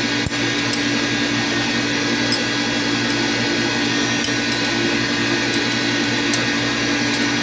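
A steady mechanical hum, with a few faint metallic clinks as a wrench works on the pump's bolts.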